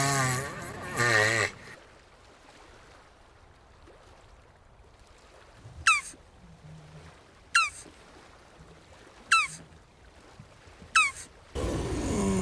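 Jabuti (tortoise) groaning in a wavering pitch, which stops about a second and a half in. Over a quiet background a bird then gives four short, sharp chirps that fall in pitch, evenly spaced about a second and a half apart. Near the end the loud wavering groaning starts again.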